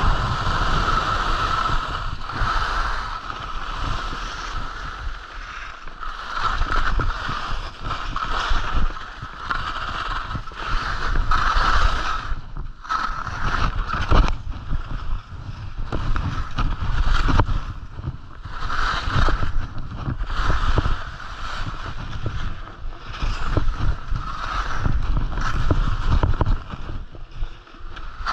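Skis scraping and carving over firm snow, swelling and fading with the turns, with wind rumbling on the camera's microphone.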